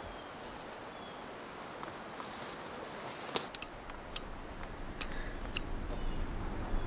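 Dry twigs clicking and snapping as kindling is stacked in a fire pit: a handful of sharp clicks from about halfway in.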